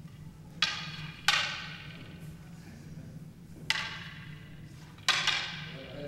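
Wooden jo staffs clacking together four times, sharp strikes in two pairs, each echoing briefly in a large hall.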